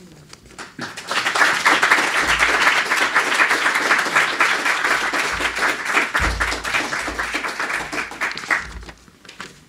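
Audience applauding: a room full of people clapping. It starts about a second in and dies away near the end.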